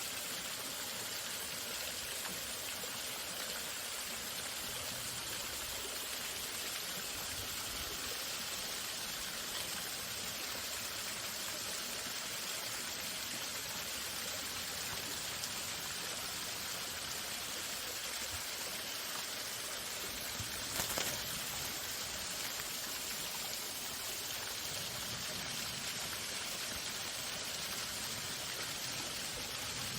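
Waterfall running steadily, an even rush of falling water, with one brief knock about two-thirds of the way through.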